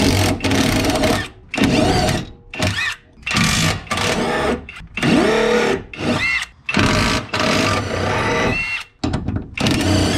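Cordless brushless impact wrench (Ozito) run in about eight bursts of one to two seconds, winding up and down as it undoes the rear suspension bolts on a Honda Civic.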